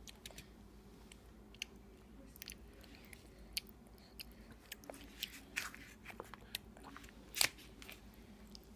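A baby eating black beans by hand: scattered soft clicks and wet mouth smacks from chewing, with fingers patting a paper plate, the loudest click a little before the end.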